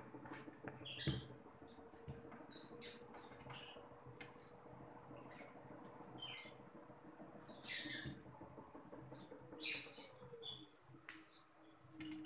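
Quiet, irregular wet mouth sounds of someone eating noodles close to the microphone, with a few sharp clicks of a fork. A faint steady hum runs underneath and drops in pitch about ten seconds in.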